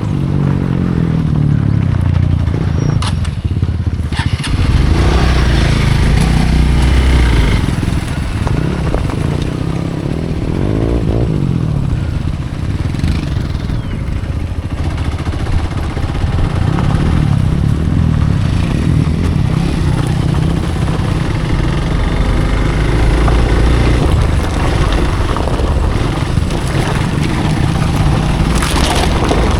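Hero Xpulse dual-sport motorcycle engine running while riding a dirt trail, its pitch rising and falling as the throttle is opened and closed.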